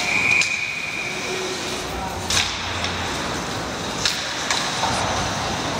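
A referee's whistle blown once at the stoppage of play: a single steady, high blast about a second long. A few sharp knocks follow over the rink's background chatter.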